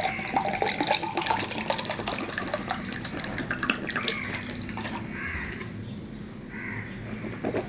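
Water poured from a plastic bottle into a drinking glass for about the first five seconds, then softer sounds as the water is drunk.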